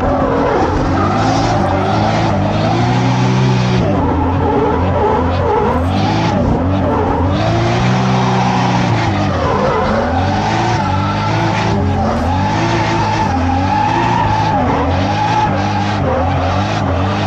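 Inside the cabin of a Toyota Chaser JZX100 drift car: its turbocharged JZ straight-six revs up and falls back over and over through a drift run, with the tyres squealing and skidding.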